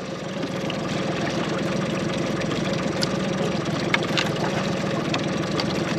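Boat engine idling steadily, with a couple of light clicks about halfway through.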